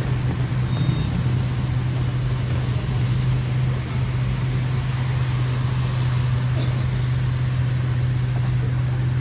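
Motor vehicle engines idling, a constant low hum with a steady hiss over it.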